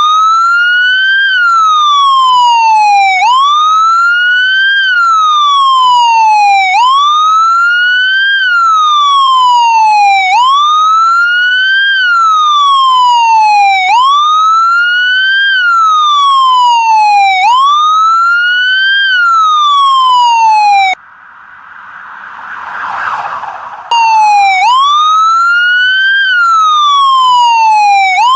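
Police siren wailing: each cycle rises quickly in pitch and falls slowly, about every three and a half seconds. About three-quarters of the way through, the siren cuts out for about three seconds while a rushing noise swells and then cuts off, before the wail starts again.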